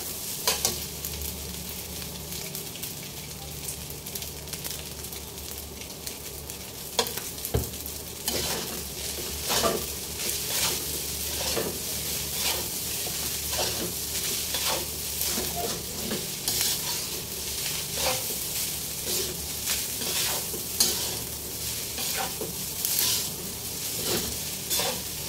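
Fried rice sizzling in a steel wok while a metal spatula stirs and tosses it. The spatula scrapes and knocks against the wok again and again, the strokes coming thicker from about seven seconds in.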